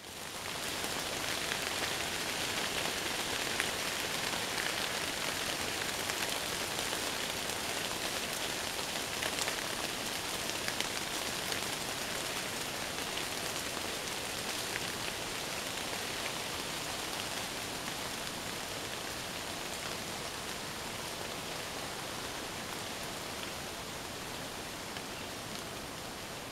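Steady rain falling on forest leaves, a continuous hiss with fine scattered drop ticks, fading in at the start.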